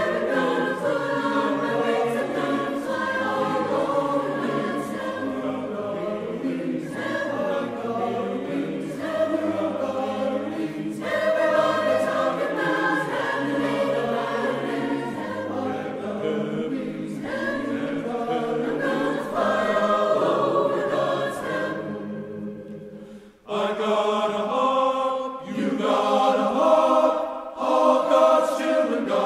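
Large choir singing a spiritual in full chords. About three-quarters of the way through, the sound fades almost to nothing, then the choir comes back in strongly.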